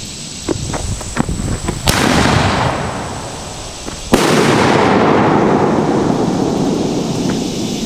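Fireworks going off: a few small sharp pops, then two large booms about two seconds apart, each followed by a long rolling echo that slowly dies away.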